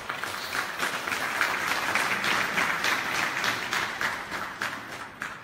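Audience applauding, many hands clapping together, swelling and then dying away near the end.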